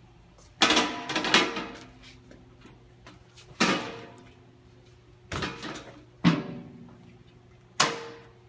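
A series of about six sharp metal clanks and bangs, each ringing briefly, over a low steady hum.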